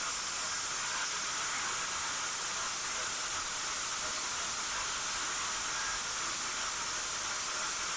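Gas welding torch flame hissing steadily while tacking pipe fittings together, with a few faint crackles about three and six seconds in.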